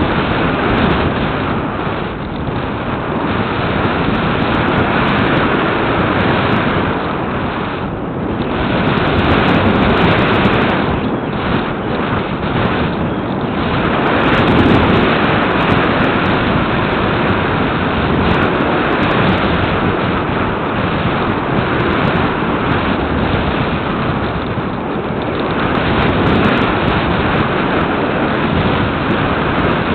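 Airflow rushing over the onboard camera microphone of an RC glider in flight: a loud, steady rush of wind with no motor heard, swelling and easing every few seconds.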